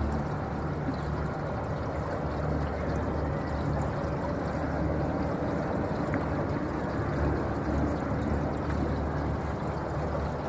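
Water rushing and lapping along the hull of a moving electric boat: a steady wash of water noise over a low rumble.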